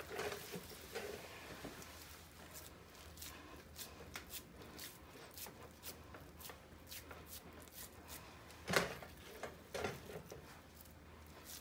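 Hands patting and pressing raw ground-meat meatloaf mixture into a glass loaf pan: a string of soft, quiet pats and squishes, with one louder thump about nine seconds in.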